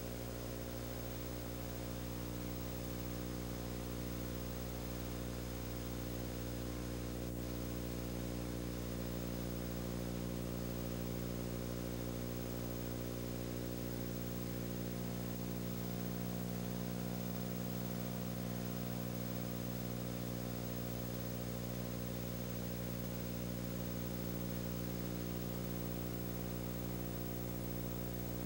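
A steady low hum made of several even tones with a faint hiss over it, unchanging throughout, with one faint tick about seven seconds in.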